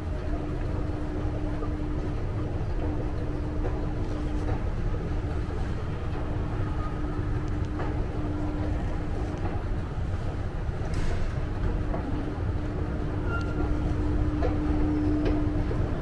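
Steady low rumble of city background noise, with a steady hum running through it that drops out briefly a few times.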